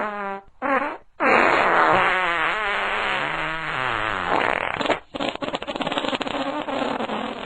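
A run of fart sounds: a short one, then a long one of about four seconds that wavers up and down in pitch, then a rapid flapping rattle in the last couple of seconds.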